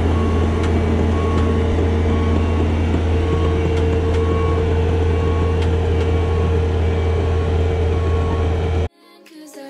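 Bobcat T650 compact track loader's diesel engine running steadily as the machine reverses, its backup alarm beeping about once a second. Just before the end the sound cuts off abruptly into music.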